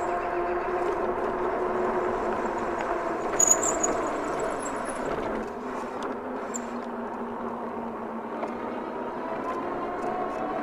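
Electric bike motor whining under a rolling haze of tyre and wind noise. Its tones sink as the bike slows about halfway through and rise again near the end, with a brief high squeak a few seconds in.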